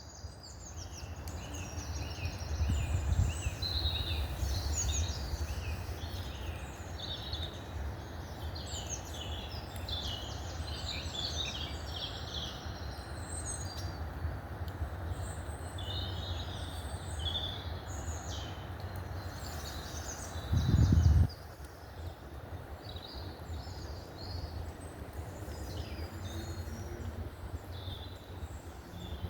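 Woodland dawn-chorus-style birdsong: several small songbirds singing and chirping over one another, over a steady low noisy rumble. About 21 seconds in, a brief louder low rumble, under a second long, is the loudest thing.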